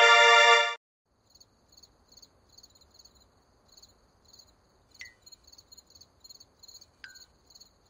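A loud held tone that cuts off under a second in, then crickets chirping in faint, evenly repeating high pulses: the stock comic 'awkward silence' cricket sound, with two faint short blips over it.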